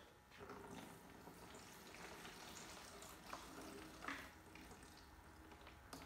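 Faint trickle of fuel draining from a Stihl MS 290 chainsaw's tank into a plastic jug, with a couple of soft clicks in the middle. The old fuel is being emptied out because it may have gone dead.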